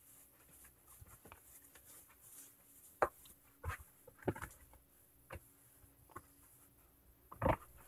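A few scattered light clicks and knocks over a quiet room with a faint steady hum, the sharpest a little after three seconds in and near the end.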